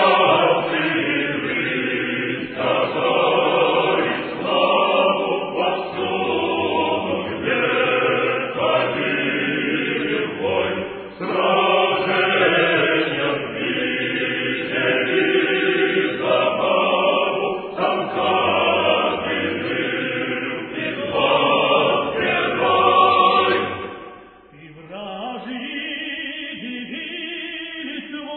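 Choir singing a song of the Russian imperial guard regiments. About four seconds before the end the singing dips and a softer phrase begins.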